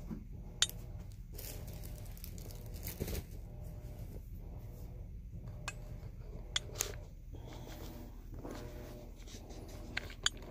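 Scattered light taps, clicks and rustling of kittens playing on the floor, with one sharp click about half a second in. Near the end the phone itself is picked up and handled, giving a few close clicks and knocks.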